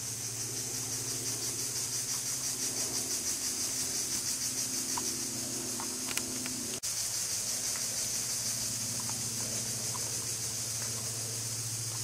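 Forest insects buzzing steadily at a high pitch, with a fast pulse, over a low steady hum. A single sharp click comes about seven seconds in.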